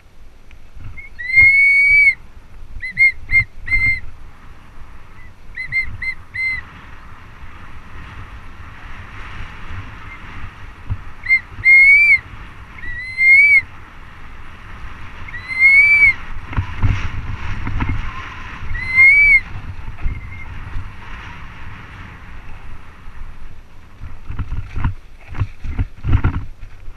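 Mountain bike rolling down a rough dirt trail: steady tyre-and-wind hiss with low jolts and rattles from the bumps. Over it come repeated high, clear whistle-like tones, some as quick triple pips and some rising then falling in pitch.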